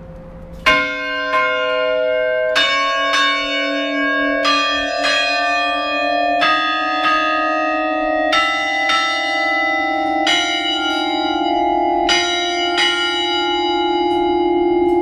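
A 13-bell one-octave chime cast in 2003 by Campanas Quintana, its fixed bells struck one at a time in a slow tune. A new note comes about every half second to second, often in pairs, and each bell rings on so that the notes overlap.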